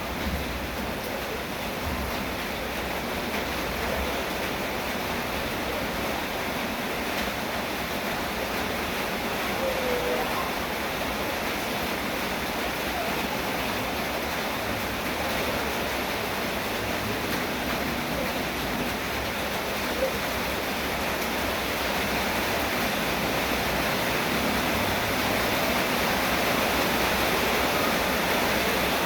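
Steady heavy rain falling as a dense, even hiss that swells slightly towards the end.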